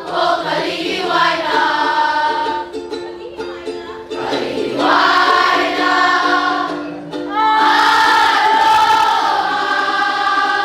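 A choir singing a song together, with long held notes over a steady instrumental accompaniment.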